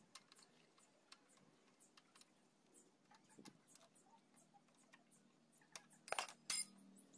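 Near-silent room with scattered faint clicks, then a brief clatter of two sharp knocks about six seconds in, as of small hard objects being handled or set down.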